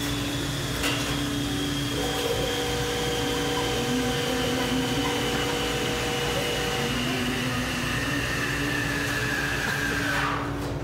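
A small electric motor running steadily with a whir, its pitch slowly sinking, then winding down and stopping near the end.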